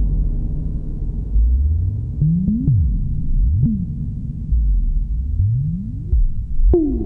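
Ciat Lonbarde Peterlin analog synthesizer, heard through the Teenage Engineering TX-6 mixer's onboard reverb, droning low and rumbling. Its oscillator pitch sweeps slowly up and down, with sharp clicks at several turns of the sweeps, the loudest near the end.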